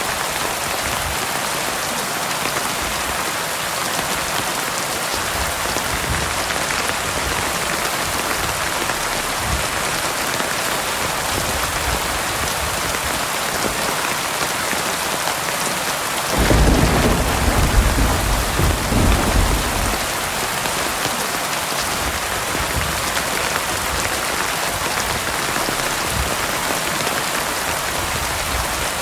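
Heavy rain falling steadily, with a rumble of thunder that breaks in suddenly just past the middle and rolls on for about three seconds before fading back under the rain.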